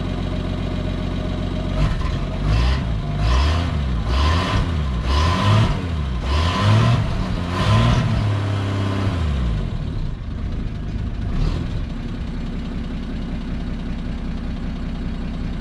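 1951 Studebaker Champion's flathead straight-six running through a makeshift exhaust with a Corolla muffler, quiet but with small exhaust leaks on both sides. It idles, is revved up and down in about six quick blips, and drops back to idle about nine seconds in, with one more small blip a little later.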